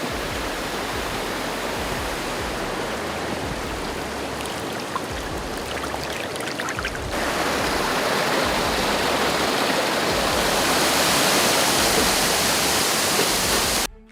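Rushing water, a steady hiss that grows louder about halfway through and cuts off abruptly near the end.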